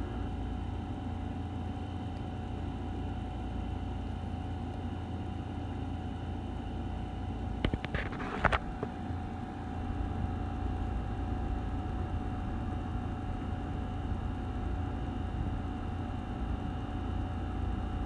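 Steady low room rumble with a faint high hum, and about eight seconds in a short run of light clicks: keystrokes on a MacBook Pro A1708's butterfly keyboard as a Wi-Fi password is typed.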